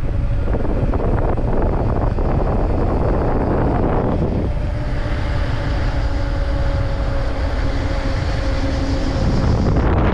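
Wind rushing over the microphone while riding, a constant low rumble. From about halfway through, a steady hum holding two pitches runs for roughly five seconds and then stops.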